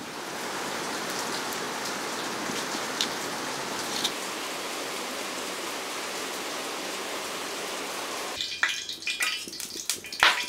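Steady rain falling and dripping off a roof's edge, with a couple of sharper drops standing out. About two seconds before the end the rain gives way to a scatter of clicks and knocks.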